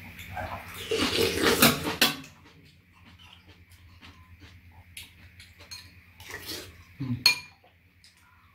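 Spoons and chopsticks clinking against ceramic soup bowls while two people eat dumpling soup. A loud burst of eating noises lasts about a second, starting a second in, and a sharp clink comes near the end.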